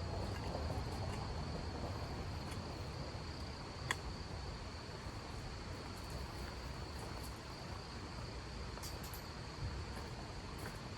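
A cricket trilling: one steady high-pitched note held without a break, over a steady rushing background noise. A single sharp click about four seconds in.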